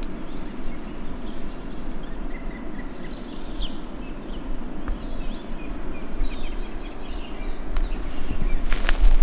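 Steady rushing of a fast-flowing river, with small birds chirping over it. A few sharp crackles and knocks come near the end.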